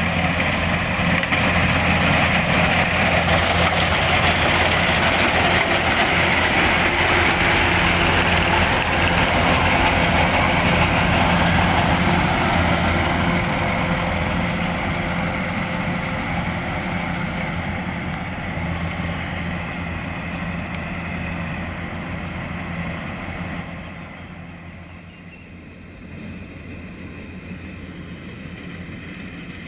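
Kubota DC-105X rice combine harvester running: a steady diesel engine hum under the rush of the threshing and cutting machinery. It grows fainter over the second half and drops off sharply about 24 seconds in.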